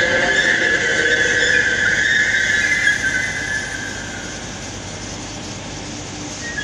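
Train wheels squealing on the rails over the rumble of a moving train, a high steady squeal that fades about three seconds in, leaving the quieter running noise.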